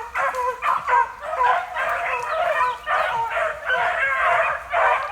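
A pack of beagles baying together, many voices overlapping in a steady run of barks and yelps. It is the sound of hounds that have jumped a rabbit and are running its track.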